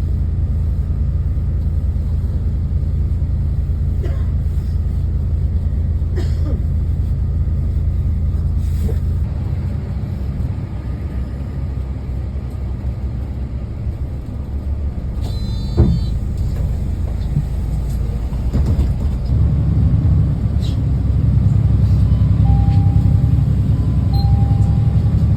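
Ride inside a city bus: the engine and tyres give a steady low rumble that swells and eases with the driving. There is a sharp knock about sixteen seconds in, and two short tones near the end.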